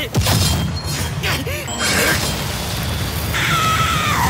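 Anime fight-scene soundtrack: background music with a few hits in the first seconds. Near the end a girl yells, her voice falling in pitch.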